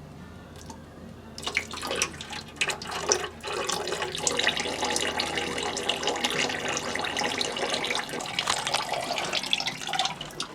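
Oil running out of an opened fitting and splashing, starting about a second and a half in.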